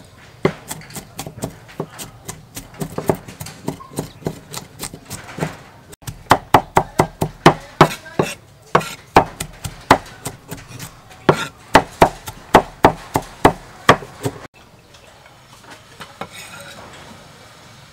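Cleaver chopping shallots on a wooden chopping board: quick repeated knocks of the blade through the shallots into the wood, about four a second, louder from about six seconds in. The chopping stops about fourteen seconds in.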